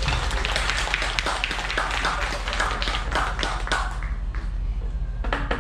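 Audience clapping, dense and irregular, dying away about four and a half seconds in. Near the end, tuned bamboo tubes start up with pitched notes struck in a quick, even rhythm.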